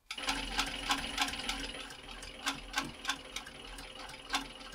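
Industrial roller-foot sewing machine stitching leather slowly: a steady motor hum with sharp stitch clicks, about two or three a second, a little uneven.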